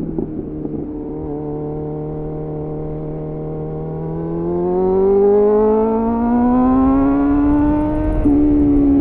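2001 Suzuki GSF 600 Bandit's inline-four running through an aftermarket slip-on exhaust (SC-Project CR-T clone with a homemade dB killer). The engine note drops and holds low off the throttle for a few seconds, then revs climb steadily under acceleration for about four seconds before easing just before the end.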